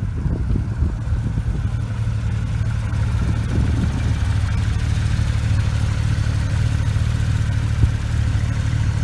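Porsche 911 GT3 RS's naturally aspirated flat-six running at low revs with a steady, deep rumble as the car rolls slowly past.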